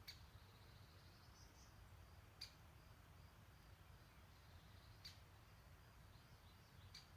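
Faint distant birdsong: a short sharp chirp repeated four times, a couple of seconds apart, over quiet twittering, with a steady low rumble underneath.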